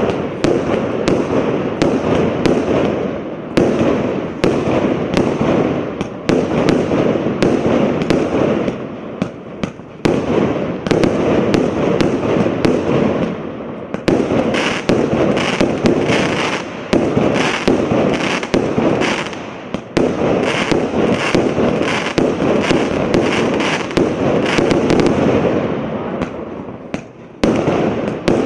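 Absolute Fireworks 'High Impact' multi-shot firework cake firing a continuous barrage of sharp shots, several a second and overlapping. Through the middle stretch there is a regular run of about two loud bursts a second. A brief lull near the end, then the shots resume.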